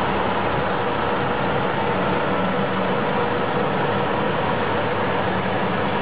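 A motor or engine running steadily at an even speed, with a constant hum that does not change.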